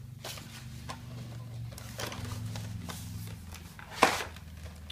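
Cardboard box flaps and a clear plastic packaging tray being handled: scattered rustles, scrapes and light clicks, with one sharp plastic clack about four seconds in. A low steady hum runs underneath.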